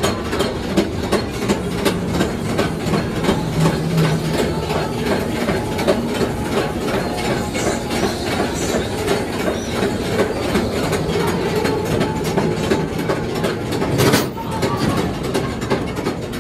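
Mine-train ride cars rolling along their track, wheels clicking over the rail joints in a rapid, steady rhythm over a constant rumble. One louder knock comes about fourteen seconds in.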